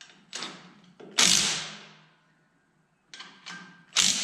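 Several irregular sharp clanks and knocks of tools and metal parts during work on a split tractor, the loudest about a second in with a ringing decay that dies away over about half a second, and another sharp one near the end.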